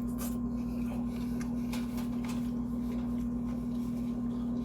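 Steady electrical hum with a constant mid-low tone, joined by a few faint soft clicks and rustles.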